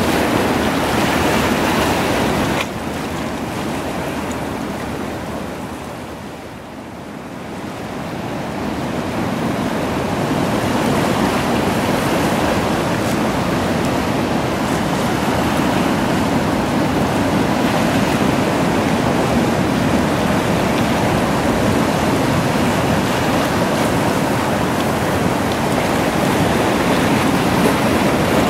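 Seawater washing over and around shoreline rocks: a steady rushing surf noise. It drops suddenly about two and a half seconds in, fades to its lowest around seven seconds, then swells back and holds steady.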